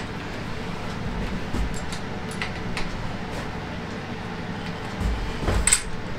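A few light metallic clicks and taps as steel pushrods are fitted into a Fiat 500 engine's cylinder head, over a steady low hum. Near the end comes a louder knock with a dull thump.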